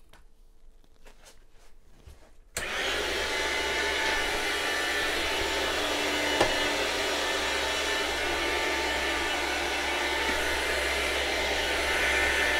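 Chef's Choice 609 electric meat slicer switched on suddenly about two and a half seconds in and then running steadily, its motor humming and the blade spinning. The thickness is set to zero, so the blade takes no slice off the salami.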